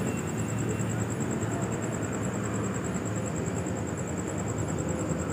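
Heavy-haul truck diesel engines running at low speed under load, a steady low drone as they move an oversized load on a multi-axle hydraulic trailer.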